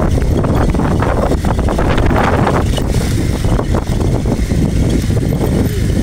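Steady low rumble of a moving road vehicle, engine and road noise together, with wind buffeting the microphone.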